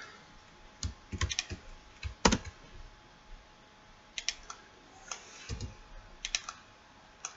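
Computer keyboard keys pressed as shortcuts: separate sharp key clicks, alone or in quick clusters of two or three, about every second, the loudest about two seconds in.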